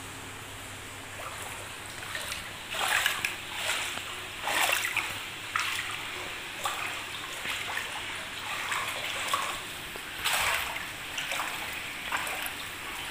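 Footsteps wading through shallow floodwater about half a foot deep over a tiled floor, each step a short splash and slosh, about one a second, starting a couple of seconds in.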